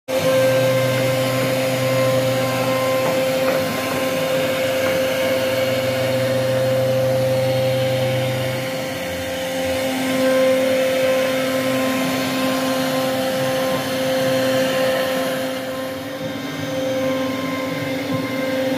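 CNC router spindle carving wood: a steady high whine over a hiss, with a lower hum that drops in and out and stops about halfway through.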